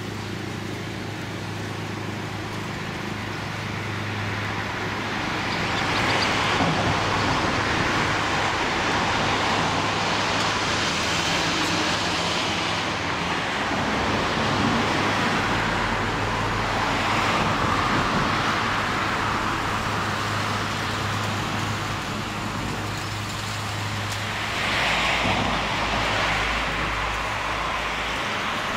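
Road traffic: several vehicles passing one after another, each a slow swell of tyre and engine noise, over a steady low hum.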